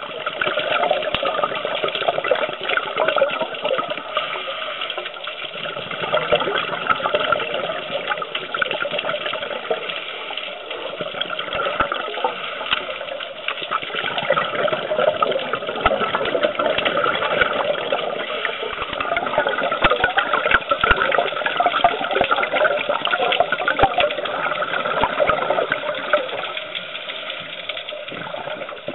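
Underwater noise from a dive camera: a steady rush of water with fine crackling throughout.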